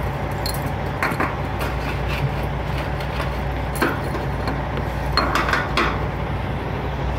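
Light metallic clinks and rattles of a fuel-tank lanyard chain and its hook knocking against a semi truck's fuel tank filler neck, scattered through, with a quick cluster about five seconds in, over a steady low hum.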